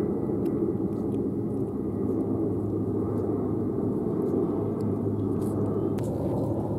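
Steady low rumble of outdoor background noise, with a single short click near the end.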